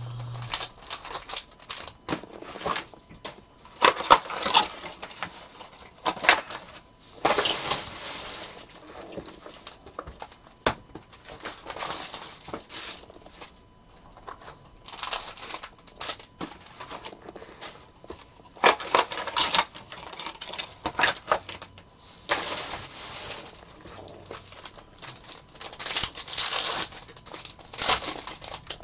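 Packaging of a 2022 Bowman Inception baseball card box being torn open and crinkled by hand, with cards being handled: irregular ripping, rustling and sharp clicks.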